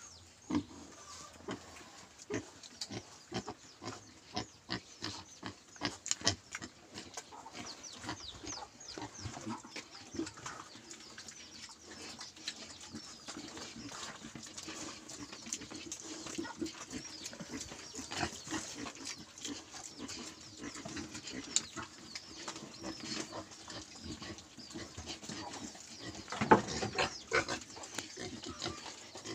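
Domestic pig grunting in short grunts in quick succession while its belly is scratched, with a louder outburst near the end.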